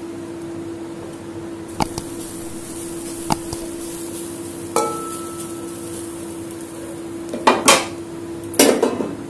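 Utensils knocking and clinking against an aluminium kadai as grated coconut is tipped in from a plate and stirred with a wooden spatula: a few separate knocks, one ringing briefly about five seconds in, and the loudest clatter near the end. A steady low hum runs underneath.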